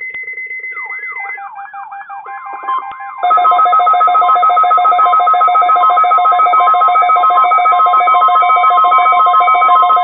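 Several NOAA weather radio receivers sounding their alert alarms together for a weekly test: a steady beep with pulsing beeps, then warbling up-and-down sweeps, and from about three seconds in a loud, rapidly pulsing alarm over a steady warning tone.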